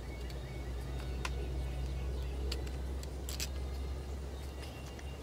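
A few light metallic clicks and clinks as the new float hinge pin is pushed into a 1957 Johnson 7.5 hp outboard carburetor, over a steady low hum that swells and fades.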